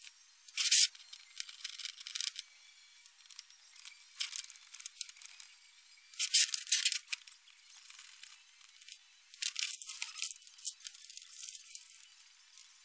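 Hex driver and plastic suspension links on an RC crawler chassis being worked loose by hand, giving irregular clicks, knocks and rattles every second or two. The loudest knocks come just under a second in and again around six seconds in.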